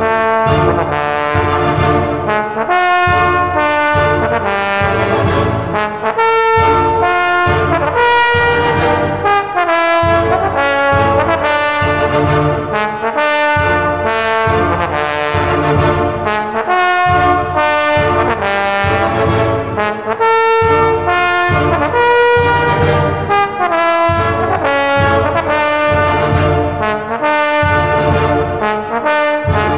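Brass band music led by a solo trombone playing a slow melody of sustained notes, over band accompaniment with a steady low beat.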